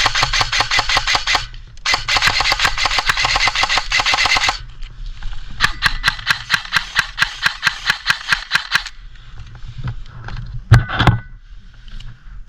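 An airsoft gun firing on full auto in long rapid bursts of clicking shots: two loud bursts, then a fainter, sparser one. A single sharp knock comes near the end.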